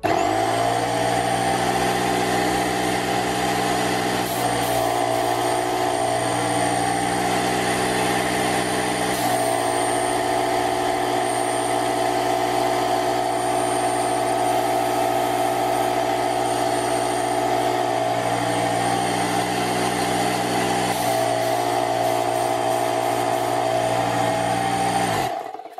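Parkside PKZ 180 C5 tankless 1100 W piston air compressor switched on, starting at once and running noisily with a steady hum while it pumps air into a ball, then cut off suddenly near the end. With no storage tank, it runs the whole time air is being drawn.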